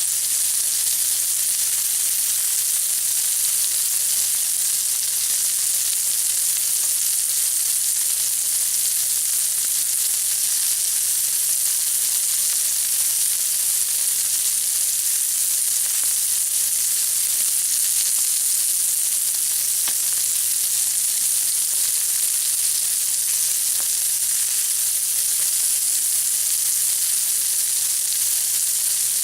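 Hamburgers frying on a hot griddle: a steady, high crackling sizzle, even throughout, with a faint low hum underneath.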